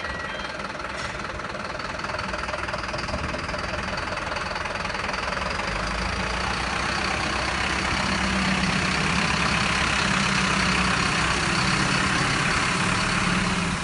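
Diesel engine of a Mercedes-Benz Atego box truck running as the truck moves slowly forward and passes close by, growing louder over the second half.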